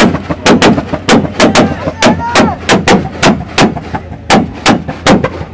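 Subaru Impreza's flat-four exhaust popping and banging as the engine is revved while the car stands still: a rapid string of sharp cracks, about three a second, with the engine note rising and falling between them.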